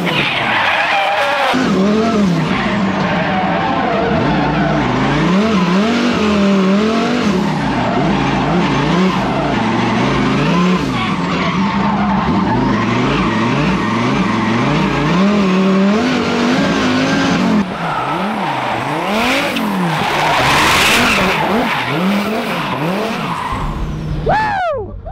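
Twin-turbo V10 engine of a Dodge Viper drift car revving up and down hard through a drift run, with tyres skidding. About two-thirds of the way through, the sound changes to the car heard from outside, with a loud stretch of tyre noise.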